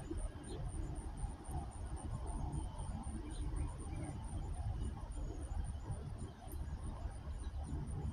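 Insects chirping steadily, a high-pitched, evenly pulsed trill at about six chirps a second, over a low rumble, with a few faint bird chirps.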